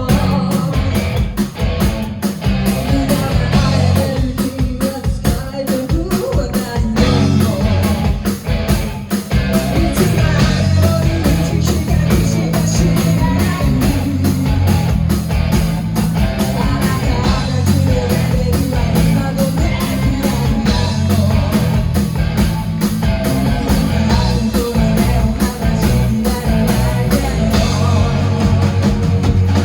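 Live rock band playing a song at full volume: electric guitar and bass over a steady drum beat, with a singer's voice at times.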